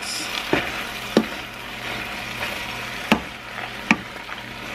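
Tomato sauce sizzling and simmering in a nonstick frying pan, with a few sharp taps of the spatula against the pan.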